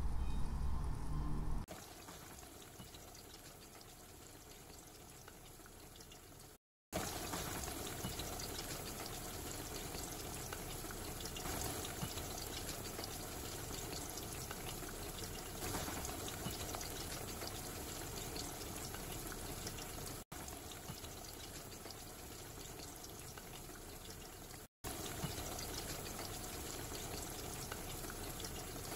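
Batter-coated ripe plantain slices deep-frying in hot oil in a stainless steel pan: a steady sizzle and crackle of bubbling oil, quieter for the first few seconds and louder from about seven seconds in.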